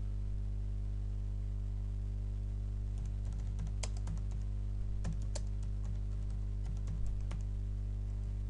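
Typing on a computer keyboard, a run of key clicks mostly in the second half, over a steady low hum.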